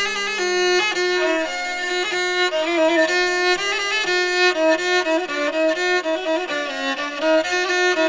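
Instrumental background music, a melody moving quickly from note to note over a low held note that fades about a second in.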